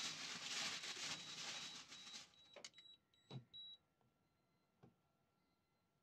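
Aluminium foil crinkling as it is handled under a rack of ribs, stopping abruptly about two seconds in and leaving a few light knocks.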